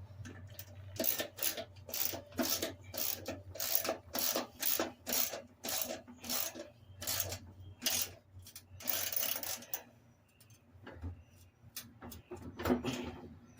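Hand socket ratchet worked back and forth on a mower deck's spindle bolts: a run of short rasping strokes, about two a second, that stop about ten seconds in, with one more stroke near the end.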